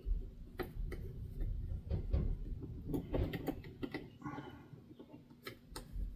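Irregular small clicks and taps of hand tools working a soldered part loose on a circuit board, over a faint steady hum.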